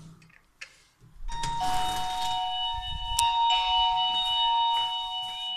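Video intercom ringing: an electronic doorbell chime of several steady tones held together, starting about a second in and shifting to a new set of notes partway through, after a short click.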